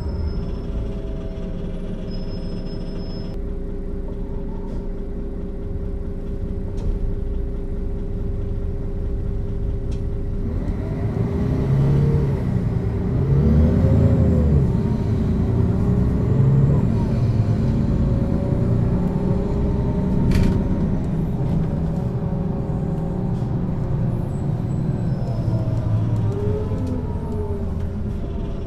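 Mercedes-Benz O 530 G Citaro articulated bus running, heard from on board: a steady diesel drone with a constant hum over it, growing somewhat louder for a few seconds around the middle.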